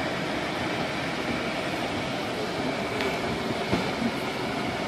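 Steady rushing noise inside a vehicle's cabin in a heavy rainstorm: rain on the windscreen and body mixed with the vehicle running, with a couple of light clicks about three seconds in.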